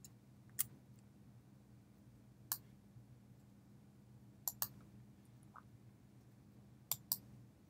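Computer mouse clicks: two single clicks, then two quick double clicks, over a faint steady low hum.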